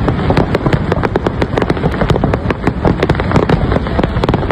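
Aerial fireworks display in a dense barrage: overlapping bangs and crackles, several a second without a break, over a continuous low rumble.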